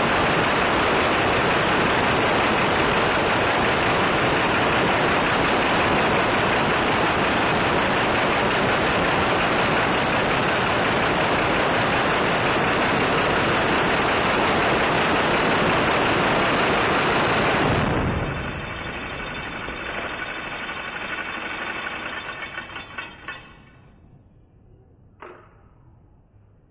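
Minigun firing one long continuous burst, so fast that the shots merge into one steady loud sound, which stops sharply about 18 seconds in. A quieter whir carries on for a few seconds and fades out, and a short chirp comes near the end.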